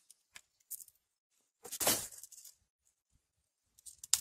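Hand shears cutting woody chaya stems for cuttings: a few faint clicks, then one louder cut lasting under a second about two seconds in.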